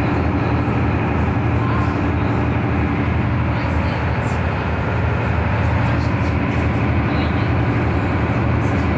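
Tour boat's engine running steadily with a low, even hum, heard from inside the passenger cabin.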